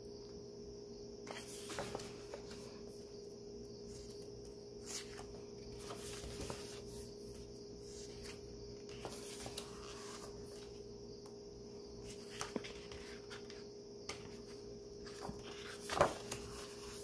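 Pages of a hardcover photo book being turned and handled: faint, scattered paper rustles and soft taps every few seconds, over a steady faint hum.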